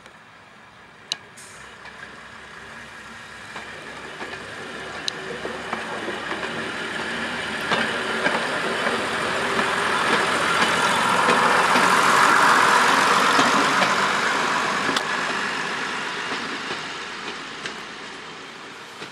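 Two-car British Rail Class 108 diesel multiple unit approaching and passing. The sound of its diesel engines and its wheels on the rails builds to a peak about two-thirds of the way through, then fades as it goes by, with a few sharp clicks along the way.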